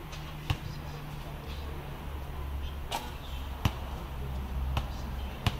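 A basketball thudding on a concrete court: five sharp single hits at uneven intervals, over a steady low hum.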